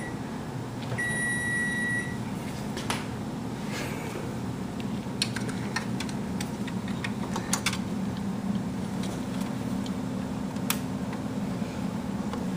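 A single electronic beep about a second in, lasting about a second. Then scattered sharp clicks and knocks as a CPU heatsink's retention clip is worked into place, over a steady low hum.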